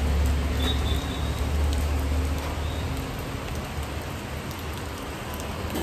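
Light rain falling steadily as an even hiss, with a low hum that fades away about two seconds in.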